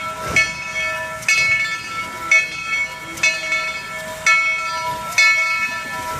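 Steam locomotive bell ringing, one strike about every second, each strike leaving a ringing, clanging tone, as the engine moves slowly.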